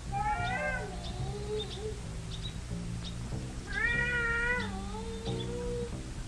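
Film-score music: a low line of short, changing notes under two wavering, pitch-bending melodic phrases of about a second each, one near the start and one about four seconds in.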